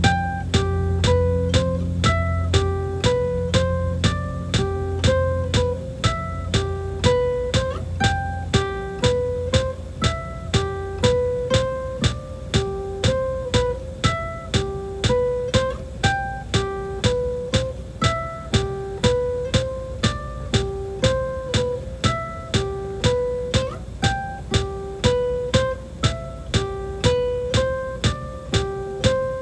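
Instrumental music: a guitar picking a steady, repeating pattern of single notes. A low sustained note underneath fades out about six seconds in.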